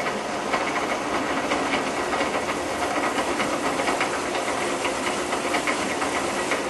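Power drill running steadily with a 17/64-inch bit, boring a hole into the side of a small wooden ball.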